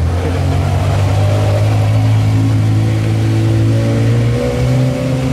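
Porsche Carrera GT's V10 engine through a straight-pipe exhaust, running at low revs with a deep, steady note as the car rolls past and pulls away; the pitch steps up a little about four seconds in.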